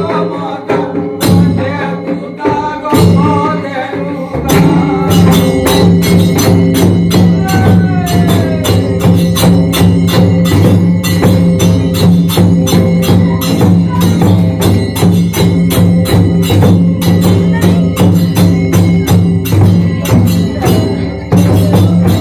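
Kudmali sahrai folk song: a man sings to hand-beaten drums, then from about four seconds in the barrel drums and frame drum break into fast, dense drumming that carries on loudly.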